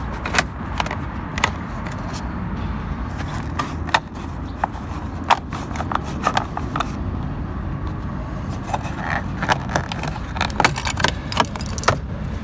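Plastic door-trim pieces around an Opel Vectra C's inner door handle clicking and tapping as they are pried apart, the clicks coming thicker near the end, over a steady low background rumble.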